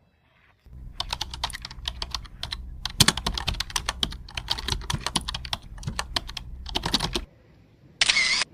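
Computer-keyboard typing sound, rapid irregular key clicks, starting just under a second in and running for about six seconds. About eight seconds in, a short, loud, bright tone cuts in.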